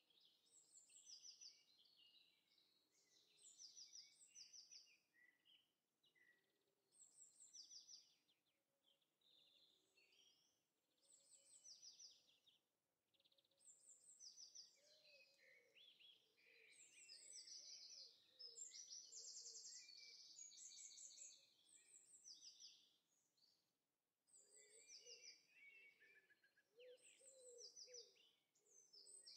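Faint birdsong ambience: several birds chirping and trilling in quick high notes in repeated phrases, with lower calls underneath that grow more frequent near the end.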